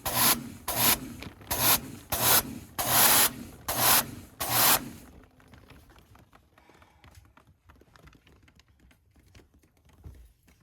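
Rapid, regular rubbing strokes from air-conditioner cleaning work, about one to two a second, that stop about halfway through and leave only faint small clicks.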